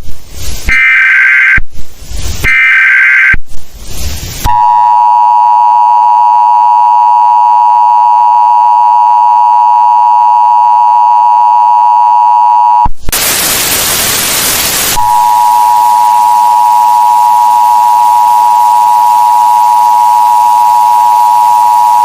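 Emergency Alert System alert tones. First come two short screeching data bursts about a second apart, the end of the alert header. Then the steady two-tone attention signal holds for about eight seconds, breaks into about two seconds of loud static, and returns quieter over a hiss for the rest.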